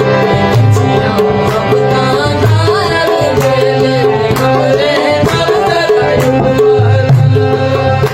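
Background music: a melody over sustained tones, with drums keeping a regular beat.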